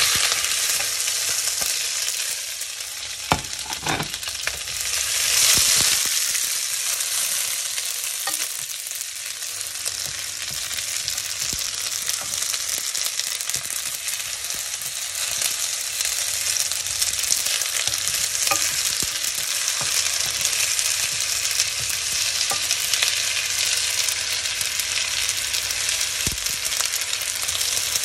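A dense, steady hiss that starts suddenly just before and runs on, with a few light clicks and knocks.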